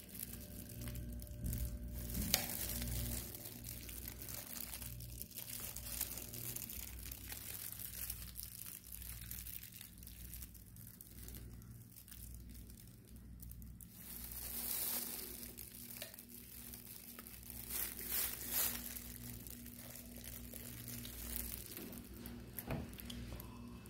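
Faint irregular rustling and crinkling, with a few louder rustles in the second half, over a steady low hum.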